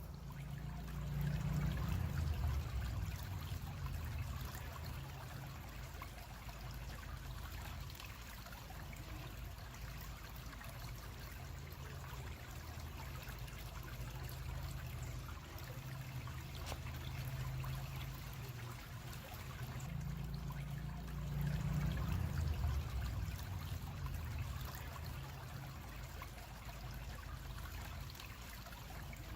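A creek trickling and babbling steadily, under a deep low rumble that swells twice, once near the start and again about two-thirds of the way through.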